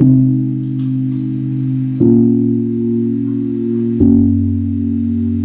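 Instrumental music: sustained guitar-and-bass chords, a new chord about every two seconds, played back through a videoke amplifier-and-speaker setup.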